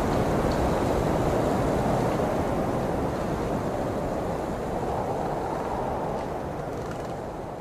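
Blizzard wind blowing, a steady rushing noise that gradually gets quieter over the last few seconds.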